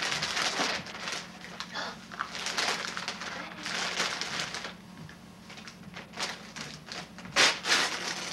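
Christmas wrapping paper being torn and crumpled by hand, in a series of ripping, rustling bursts, the loudest near the end.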